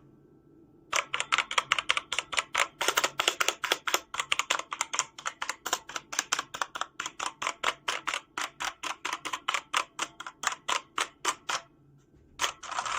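Mechanical keyboard being typed on in a fast, steady run of clacking keystrokes, about six a second. The typing stops for a moment near the end, then there is a short burst of keystrokes.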